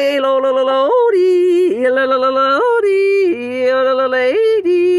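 A woman yodeling without words, holding long notes and flipping her voice back and forth between low and high notes about four times.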